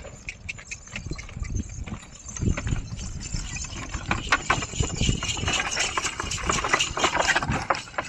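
Donkeys pulling wooden carts on a dirt track: hooves clopping, mixed with irregular knocks and clatter from the carts, busier and louder in the second half.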